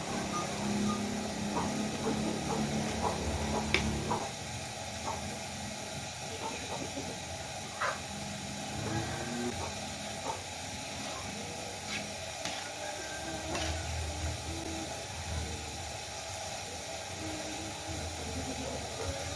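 Steady hissing sizzle of food frying in a pan, with scattered sharp clicks.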